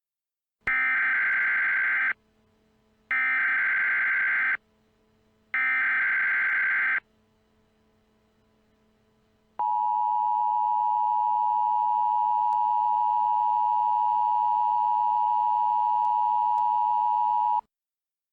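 Emergency Alert System activation: three bursts of harsh digital SAME header data, each about a second and a half long with short gaps between them, followed after a pause by the steady two-tone EAS attention signal, held for about eight seconds before cutting off.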